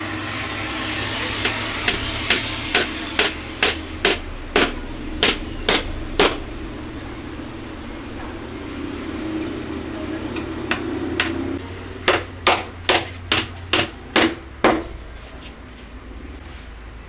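Hammer striking a DIY subwoofer box in two runs of evenly paced blows, about two a second. There is a pause of a few seconds between the runs.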